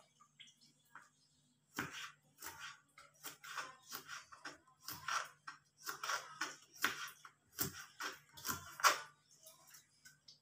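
Kitchen knife slicing green beans on a plastic cutting board: about a dozen sharp cuts, one or two a second, starting about two seconds in. A faint steady hum runs underneath.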